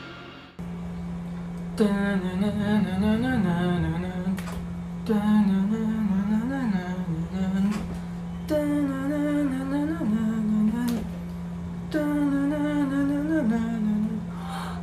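A man humming a wavering tune in four short phrases with brief pauses between them, over a steady low drone note.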